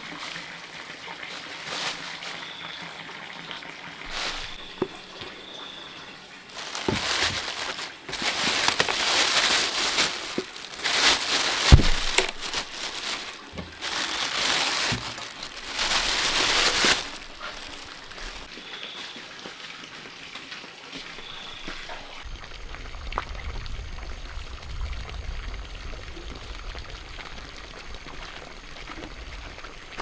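Water pouring and splashing in several bursts of a few seconds each, with a sharp knock partway through.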